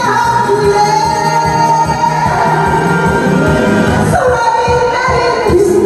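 A woman singing a Korean song into a handheld microphone, her amplified voice holding long, bending notes over a backing track with a steady beat.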